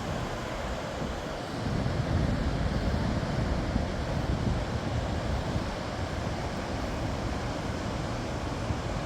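Ocean surf washing in, with wind buffeting the microphone; the rush grows louder about one and a half seconds in.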